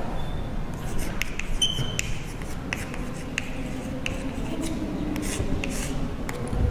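Chalk writing on a blackboard: a run of short taps and scratchy strokes as the letters are written, with a brief high chalk squeak about a second and a half in.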